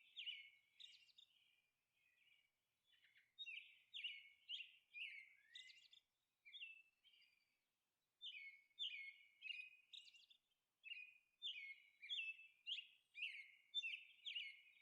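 Faint bird chirping: many short, high chirps repeated about two a second, falling quiet for a couple of seconds near the start, then resuming.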